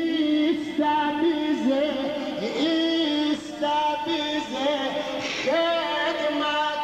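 A single voice singing a slow, ornamented Middle Eastern–style melody, holding long notes and sliding between them.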